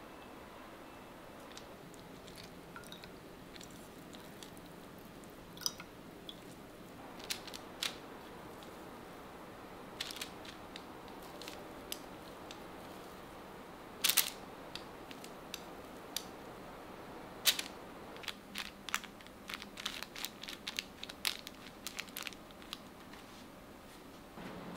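Scattered light clicks, taps and crunches of small objects being handled, the sharpest about fourteen and seventeen seconds in, with a quicker run of small clicks near the end.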